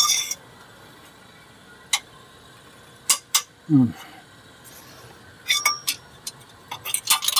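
Metal hand tools clinking and knocking: a wrench with a length of pipe slipped over it as a breaker bar, worked on a tight bolt. A few single clinks come first, with a brief low sound falling in pitch a little before halfway, then a quick run of clicks near the end.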